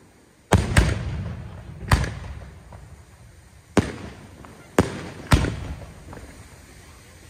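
Aerial firework shells bursting overhead: about six sharp bangs over roughly five seconds, two close together near the start, each followed by an echo dying away.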